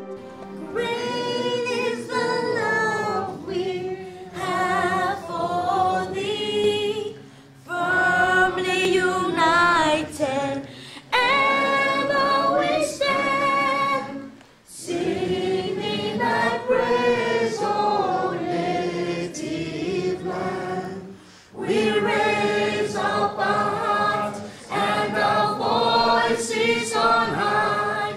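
A young woman singing a national anthem unaccompanied into a microphone, in long held phrases with short pauses between them.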